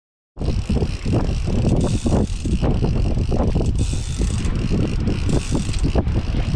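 Strong wind buffeting the camera microphone: a loud, dense low rumble with rapid irregular flutter, starting abruptly a moment in after silence.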